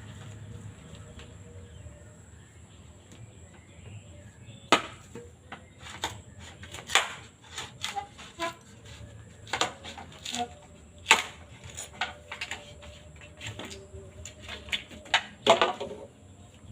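Bamboo being split by hand with a blade: a series of sharp, irregular knocks and cracks, starting a few seconds in.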